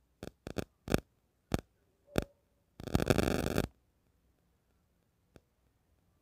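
Sharp clicks and taps of plastic control knobs being handled and pushed onto a stainless-steel LPG gas stove, about seven in the first two seconds. A short scraping rasp follows about three seconds in, and one faint click comes near the end.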